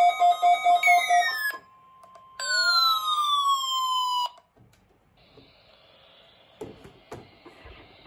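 Electronic alarm-like tones: a rapid pulsing beep, about six a second, breaks into falling sweeps. After a short pause comes one long downward sweep, then a faint hiss with a couple of clicks near the end.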